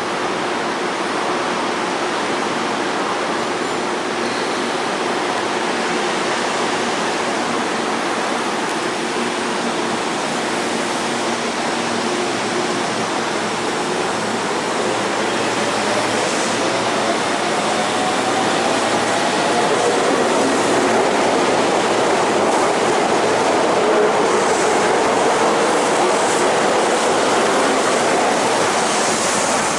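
Electric commuter train pulling out and accelerating, its traction motors giving a whine that rises in pitch about halfway through, with the running noise growing louder after that.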